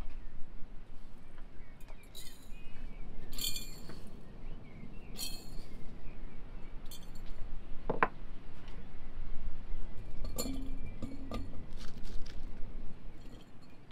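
Chopped vegetables and spices dropped by hand into empty glass jars, clinking against the glass at irregular intervals, with one clearer ringing clink about halfway through.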